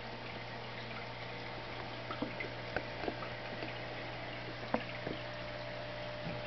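Aquarium water bubbling from the air stream and filter over a steady low hum, with small scattered pops and drips.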